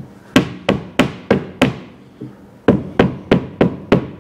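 Dead-blow mallet tapping a windshield frame down onto new glass to seat it in its channel: quick, even knocks about three a second, a run of five, a pause of about a second, then another steady run.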